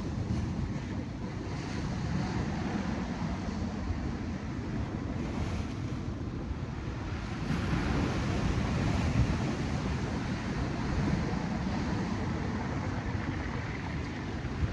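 Sea surf washing on the shore with wind buffeting the microphone, a steady rushing noise that swells slightly partway through.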